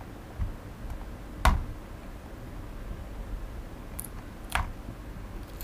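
A few short, sharp plastic clicks and knocks as hands pry and peel the side piece off a Xiaomi Mi Drone 4K remote controller; the loudest comes about a second and a half in, two more near the end.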